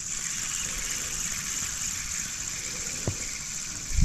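DMK Bluemoon 1500 spinning reel being cranked to retrieve line, a steady whirr with a fine, even ticking from the gears, over a constant high insect chorus. A single click comes about three seconds in.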